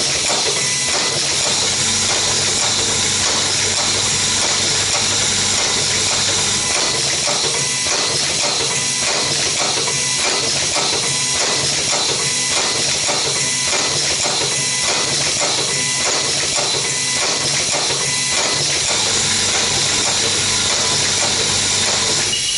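Automatic nylon zipper slider mounting machine running its production cycle: a steady hiss of compressed air with a run of quick mechanical clicks and knocks from its pneumatic cylinders mounting sliders.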